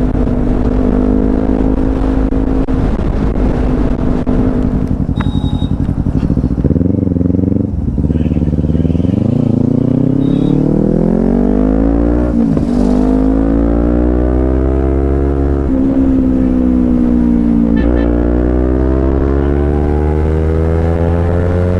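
Kawasaki Z250's parallel-twin engine heard from the rider's seat. It runs at a steady cruise, then pulls hard, its pitch climbing and dropping back at each upshift about three times before climbing again near the end.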